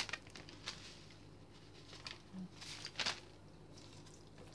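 Hands handling a raw duck, giving a few soft, brief squishes and rustles of wet skin and flesh, the loudest about three seconds in.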